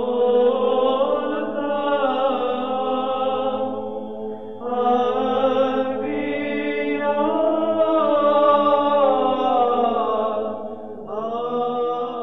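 Sung chant: voices hold long notes that glide slowly up and down over a steady low drone. The phrase breaks about four and a half seconds in and again near the end.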